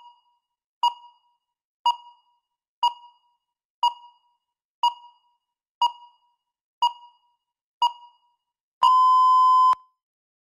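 Electronic countdown-timer beeps: nine short, identical beeps about once a second, then one longer steady beep of about a second near the end.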